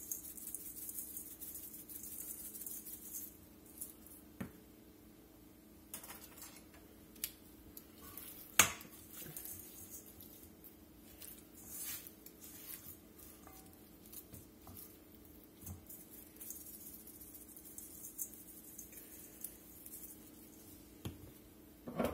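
Chicken rub shaken from a shaker jar onto raw chicken tenders in a stainless steel mixing bowl, a faint hiss for the first few seconds, then the tenders tossed and rubbed by hand in the bowl with scattered light clinks of the metal bowl, the sharpest about a third of the way in. A steady low hum runs underneath.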